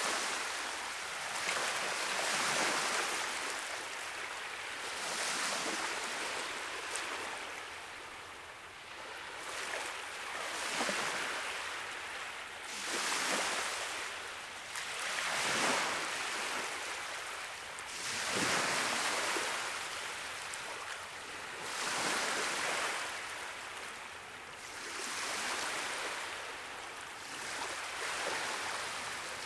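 Ocean surf: waves washing in and breaking, a steady hiss that swells and ebbs every two to three seconds.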